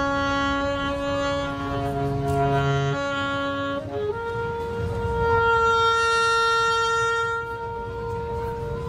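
Alto saxophone improvising: a long held low note, then a step up to a higher note about four seconds in, held for the rest of the time and swelling louder in the middle.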